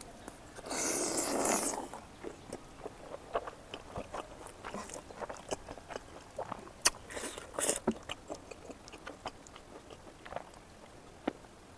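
Close-up eating sounds of a person chewing smoked pork fat and rice: wet chewing and lip smacks, with two longer slurps, about a second in and about seven seconds in.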